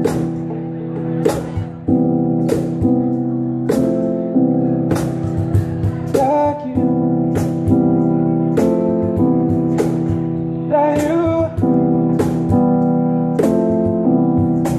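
Live music on an electric stage keyboard: sustained chords over a steady beat of sharp percussion hits roughly once a second, with short sung phrases about six and eleven seconds in.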